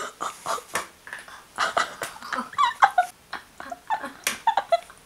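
A girl giggling with her mouth closed, in short breathy bursts with a few squeaky pitched bits.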